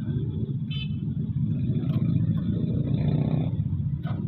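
Road traffic: vehicle engines running steadily close by, swelling around three seconds in as a vehicle passes.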